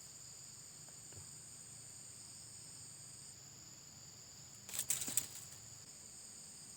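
Steady, high-pitched chirring of insects. About five seconds in, a brief loud noise stands out above it.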